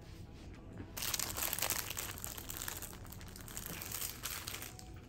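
Crinkling of a thin packaging wrapper as it is handled. It starts about a second in and eases off near the end.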